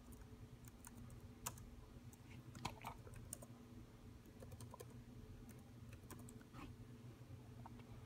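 Faint typing on a computer keyboard: a few scattered, irregular key clicks, with a couple of slightly louder taps.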